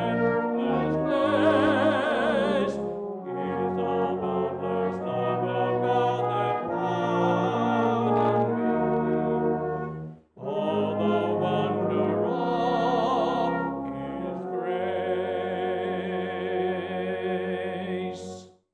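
Brass band of cornets, euphoniums and tubas playing a hymn tune in sustained chords. It pauses briefly about halfway through, then closes on a long held final chord that stops sharply.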